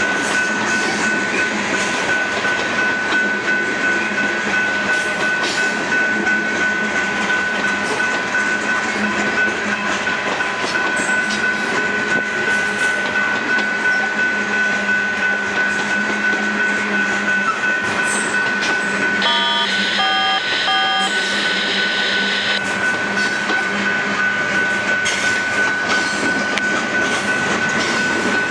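Freight train of tank cars and covered hoppers rolling past: the steady rumble and clatter of wheels on rail joints, with a steady high whine over it. About two-thirds of the way through, a short run of electronic beeps.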